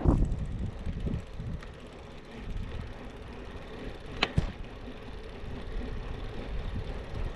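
Brompton folding bike being ridden: a steady low rumble of tyres and wind on the microphone, with one sharp click about four seconds in.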